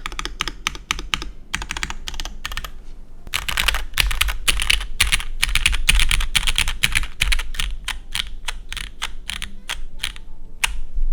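Typing on a Merisi 500c 65% mechanical keyboard with lubed Cherry MX Black linear switches on a carbon fiber plate, under GMK keycaps. Runs of keystrokes pause briefly about three seconds in, then come fast and dense, and thin out to separate presses near the end.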